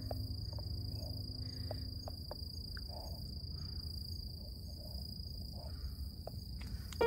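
Insect trilling as one steady, unbroken high-pitched tone, with a low rumble underneath.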